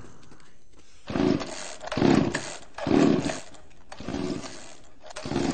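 Chainsaw revved in five surges about a second apart, the fourth one weaker.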